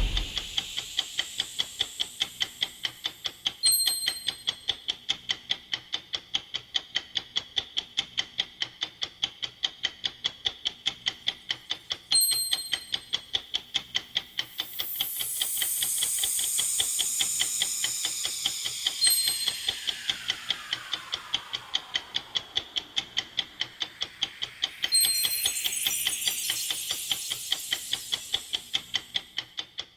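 Countdown-timer clock sound effect: fast, even ticking, with a short bright chime every several seconds and a descending whooshing sweep about halfway through.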